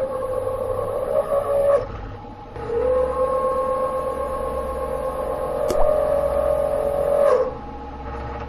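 Milling machine spindle running while a cutter cuts recesses into the bolt holes of a steel disc: two cutting passes, each a steady whine over the machine's hum, the first about two seconds long and the second about five, with a sharp click partway through the second.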